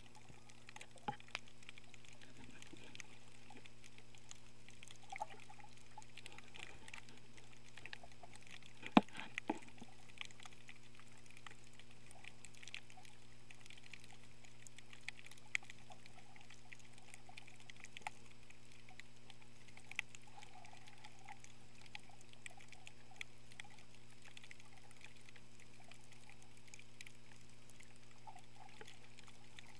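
Underwater ambience heard through a camera's waterproof housing: a steady low hum and faint hiss with scattered clicks and pops. The loudest is a sharp click about nine seconds in.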